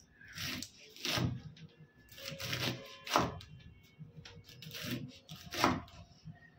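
Kitchen knife chopping green beans on a wooden cutting board: about seven cuts at an uneven pace, each a short sharp chop through the beans into the board.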